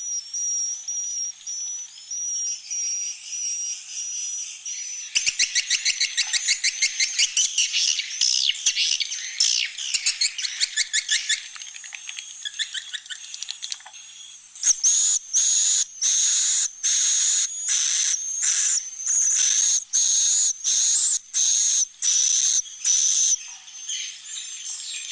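Recorded swiftlet calls played as a roosting lure: high chirping twitters, then from about five seconds in a fast rattling trill of clicks, and from about fourteen seconds a loud call repeated in regular pulses, roughly three every two seconds.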